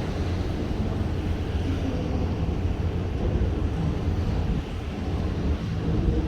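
Steady low rumble of a ship under way at sea, mixed with wind and sea noise.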